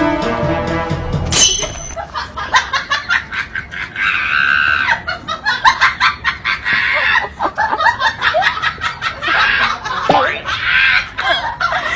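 A short stretch of music, then about a second and a half in, a person laughing and shrieking in quick bursts.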